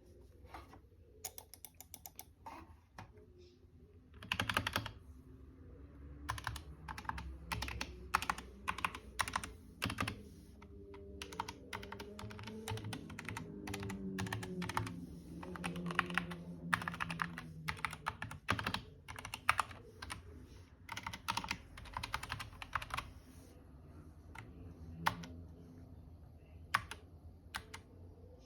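Typing on an SK61 keyboard with Gateron optical brown switches: a few scattered keystrokes at first, then runs of fast keystrokes broken by short pauses, thinning out again near the end.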